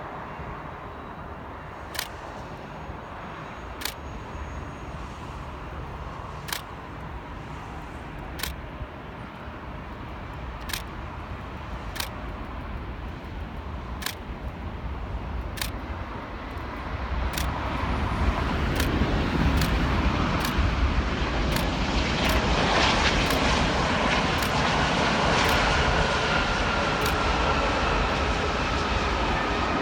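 Steady traffic hum, then from about halfway a jet roar from the British Airways Airbus A380's Rolls-Royce Trent 900 engines builds and stays loud as the airliner rolls out after touchdown, with a faint whine near the end. Sharp clicks recur every second or two throughout.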